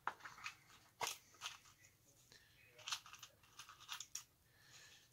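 Faint handling noises: a few light clicks and short rustles of small parts and materials being picked up and set down on a workbench.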